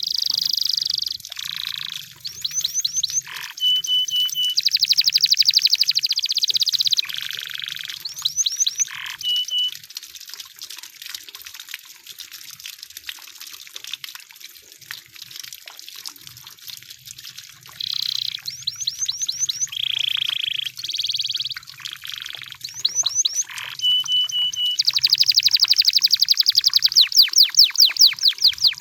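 Canary singing in phrases of rapid trills and short steady whistled notes, with a pause of several seconds in the middle and a long, fast trill near the end.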